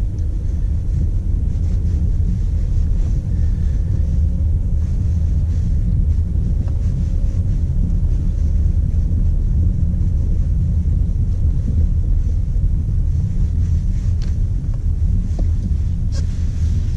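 Steady low rumble inside the cabin of a 2012 BMW 116i F20, a 1.6-litre turbocharged four-cylinder hatchback, driving slowly on a snowy road: engine and tyre noise, with a couple of faint clicks near the end.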